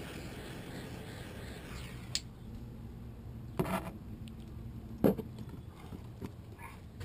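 Bernzomatic butane heat torch hissing faintly as it blows hot air on heat-shrink tubing over a wire splice, cut off with a click about two seconds in. Then two knocks from handling the tool and wires, the second, a little past halfway, the loudest sound.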